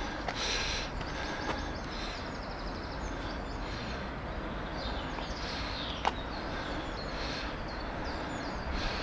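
Small birds chirping repeatedly over a steady low hum of distant city traffic, with one sharp click about six seconds in.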